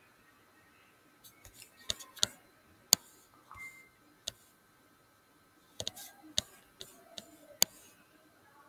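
Computer mouse clicking: sharp, irregular clicks that begin a little over a second in, the loudest about three seconds in and near the end.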